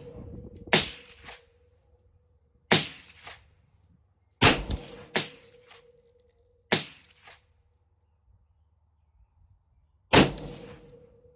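Six single rifle shots from AR-pattern rifles fired at an irregular pace, each a sharp crack with a short echo trailing off. Two of the shots come less than a second apart.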